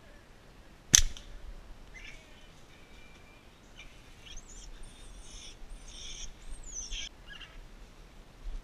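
A homemade slingshot fired: one sharp snap as the rubber bands are released about a second in. Birds chirp and call for several seconds after it.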